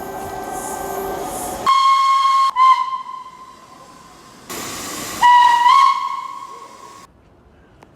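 Steam locomotive whistle: a loud blast of about a second, then a short toot. After a burst of steam hiss comes a longer blast that slides up in pitch as the whistle opens fully, holds, then cuts off.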